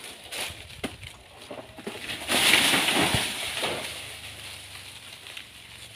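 A few light knocks, then about two seconds in a loud rustling crash of leaves that fades over a second and a half: the cut top of a banana trunk with its leaves falling through the foliage.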